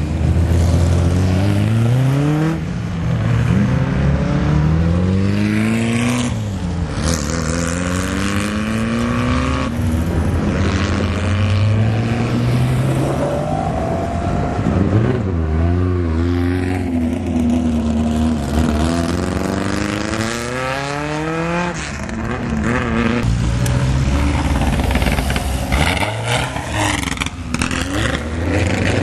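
Historic racing cars accelerating hard away one after another, each engine revving up through the gears with clear drops in pitch at each gear change.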